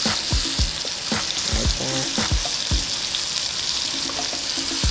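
Chicken sizzling in oil in a stainless skillet over a gas burner: a steady hiss broken by repeated dull knocks as tongs and a knife work against the pan to cut the piece open.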